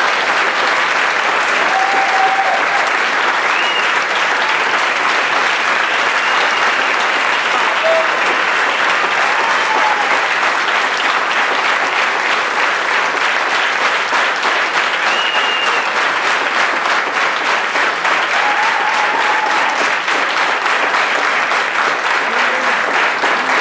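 Audience applauding steadily, with a few shouts and cheers heard above the clapping.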